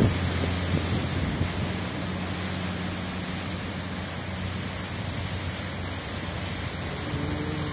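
Steady rushing of a waterfall in monsoon spate, muddy floodwater pouring over rock ledges, with a low hum underneath that fades about halfway.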